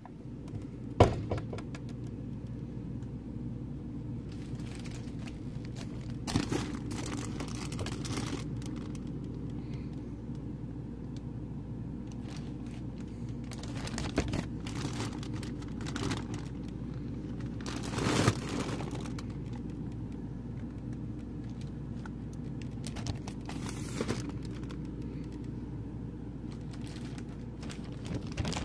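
Plastic storage bags crinkling and rustling as they are handled in a freezer, with a few sharper knocks, over a steady low hum.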